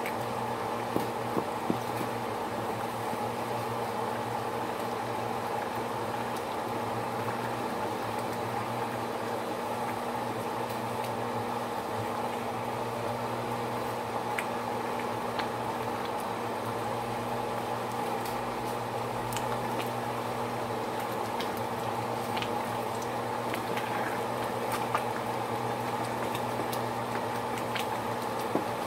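Pot of yellow rice in water on the stove at a steady boil, bubbling with scattered small pops, over a steady low hum.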